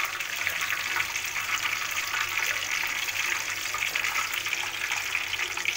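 Tofu deep-frying in hot oil in a wok: a steady, dense sizzling crackle.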